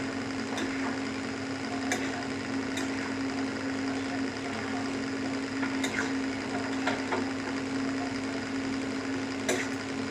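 Spatula scraping and knocking against a metal kadai as a thick curry is stirred, a few short scrapes a second or two apart. A steady low hum runs underneath.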